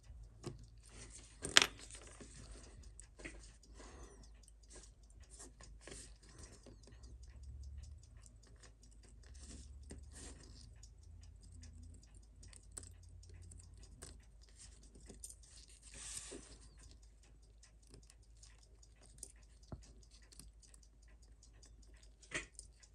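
Scattered small metallic clicks and taps of watchmaker's tools on the parts of a Seiko 6105 watch being worked on, irregular rather than a steady tick, with one sharp louder click about one and a half seconds in and another near the end.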